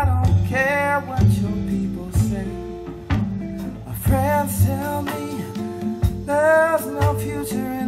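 A recorded song with a singing voice, guitar and bass playing back through Swans M3 bookshelf speakers, picked up in the room.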